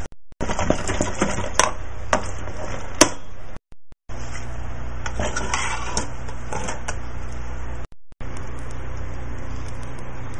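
A small motor running steadily, such as a kitchen appliance, with a few sharp clinks of utensils or dishes in the first few seconds. The hum breaks off briefly where the footage is cut, twice.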